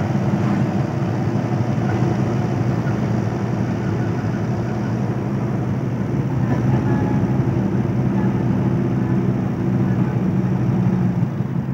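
Tata Super Ace mini truck's diesel engine running steadily on the road, heard from inside the cab, with the truck carrying a load.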